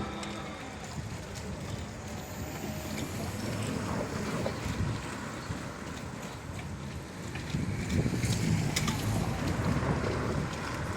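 A train rumbling past at a railway level crossing, a steady noise of wheels on the track with a few faint clacks, mixed with wind noise on the microphone; it swells a little near the end.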